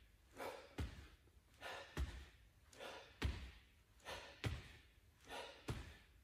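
A person breathing hard during a bodyweight hip-extension exercise: a heavy breath with every repetition, each paired with a dull low thud, about one repetition every 1.2 seconds, five times in a row.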